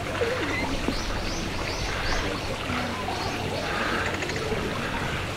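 Short, high chirps that rise quickly, in runs of three or four about a third of a second apart, over a steady low background hum.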